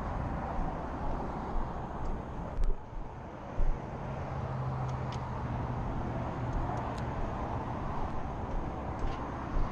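Steady road traffic noise, with a low engine drone for a few seconds in the middle. Two short knocks sound in the first half.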